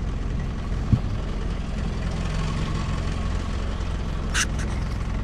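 Boat engine running steadily at low speed, a low even hum. A single click about a second in and a short hiss about four and a half seconds in.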